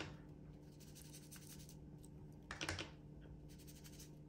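Faint scratchy strokes of a colouring tool rubbing on planner paper: one right at the start and a short cluster about two and a half seconds in.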